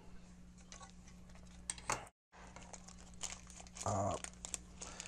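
Faint crinkling and light clicks of a small clear plastic parts bag being handled in the fingers, over a steady low electrical hum. The sound drops out to complete silence for a moment about two seconds in.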